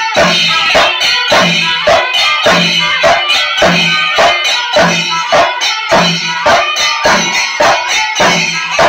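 Kerala melam ensemble: a row of chenda drums beaten with curved sticks in a fast, steady rhythm, with a heavier stroke about once a second. A kuzhal pipe plays a shrill line over the drums.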